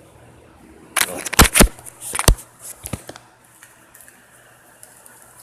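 Handling noise from unwrapping a new USB extension cable: a burst of sharp crinkles and clicks about a second in, a second loud one shortly after, then a few scattered smaller clicks.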